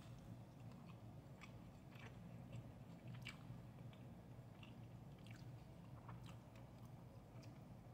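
Faint close-up chewing of a mouthful of fried rice, with soft, scattered mouth clicks, over a low steady hum.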